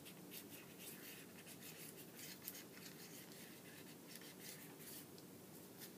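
Faint scratching of an embossing tool being drawn around the petals of a paper flower, a quick string of light strokes.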